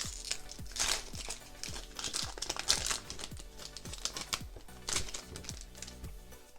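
Foil booster pack wrapper of Pokémon cards crinkling in the hands as the pack is opened, in irregular rustles, over background music with a steady beat.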